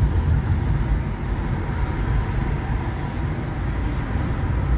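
Steady low rumble of road and engine noise inside a moving car's cabin, even throughout.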